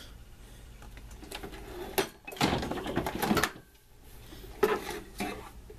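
Hard objects being handled: scattered clicks and knocks, with a rattling clatter lasting about a second midway and another sharp knock near the end.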